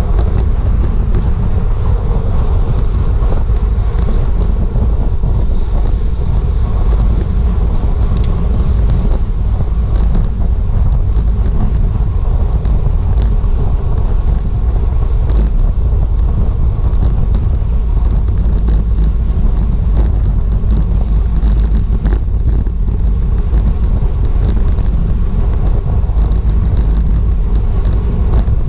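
Wind rushing over a GoPro's microphone on a racing bicycle, a steady heavy low rumble, with frequent sharp rattles and clicks from the bike on the road.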